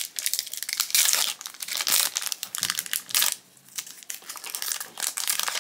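Foil wrapper of a Lorcana trading-card booster pack crinkling as it is torn and peeled open by hand: a run of crackly rustles, busiest in the first half and softer near the end.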